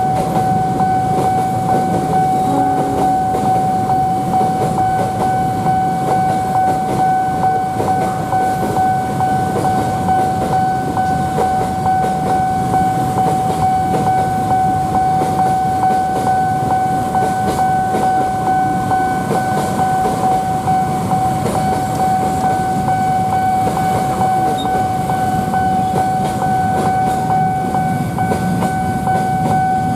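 A train running past a railway level crossing, its rumble and wheel noise under the crossing's warning alarm, which holds one steady high tone throughout.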